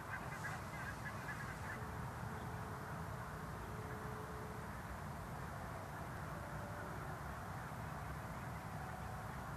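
Open-field ambience: a steady low rumble with faint bird calls, most of them in the first two seconds, and a few thin whistles later.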